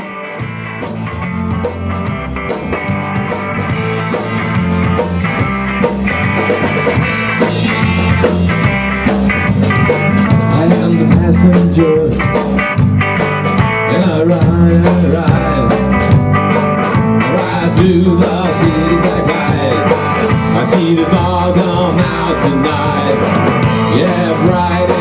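Live rock band playing an instrumental intro on electric guitars and a drum kit, with a steady beat, growing louder over the first several seconds.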